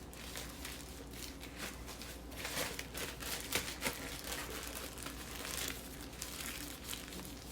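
Plastic freezer bag crinkling in irregular bursts as it is handled and pressed to push the air out before sealing.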